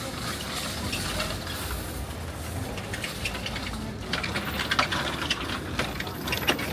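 Busy street ambience: a steady hum of traffic and people moving about, with a run of light clicks and taps in the second half.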